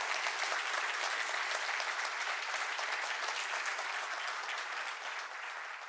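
Audience applauding: dense clapping from many people that holds steady, then begins to thin out near the end.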